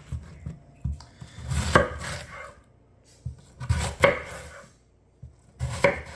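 A knife slicing crosswise through a halved watermelon, three cuts in a row, each a crunch through the rind and flesh ending in a knock of the blade on the cutting surface.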